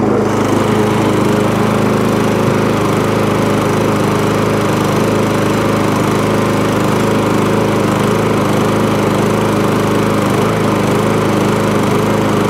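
Petrol engine of a small MTD push lawnmower running steadily with its foam air-filter insert taken out. The foam had been packed too thick and was starving the engine of air.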